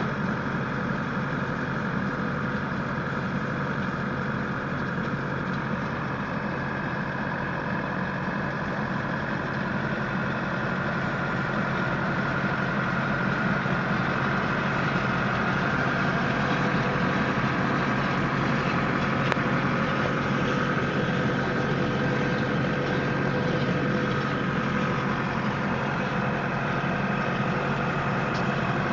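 Verti-Quake deep-tine decompaction machine running steadily as it works across turf, with the drive's engine giving a fast, even pulsing; it grows a little louder about halfway through.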